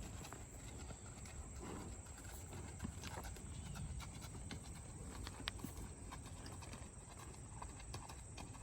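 Horse hooves clopping at an uneven pace, with a few sharper knocks among the softer footfalls.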